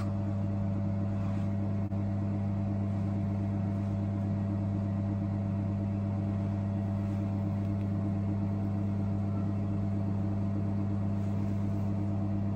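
Steady low electrical hum, a deep tone with a second one an octave above, unchanging throughout, with a single sharp click right at the start.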